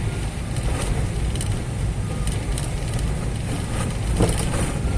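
Steady in-cabin engine and road noise of a truck-based camper driving on a wet road: a low rumble under the hiss of tyres on water, with scattered light crackles. A windscreen wiper sweeps once about four seconds in.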